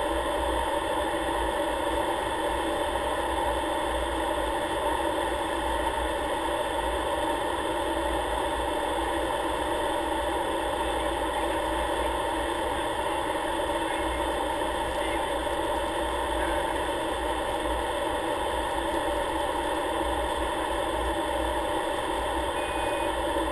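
Steady drone of a light propeller aircraft heard inside the cockpit: engine and propeller noise mixed with airflow.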